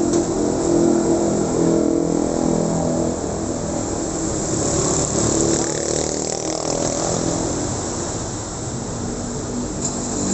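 Street traffic: small motorcycle and scooter engines running as they pass close by, with a group of them going by about six seconds in.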